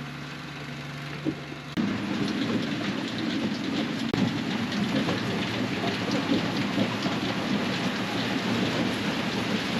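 Combine harvester working wheat: a steady machine hum that gives way abruptly, about two seconds in, to a loud, dense clattering rattle.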